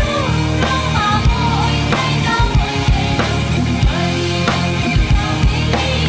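Music: a song with a steady drum beat, bass and a melody line, no words sung here.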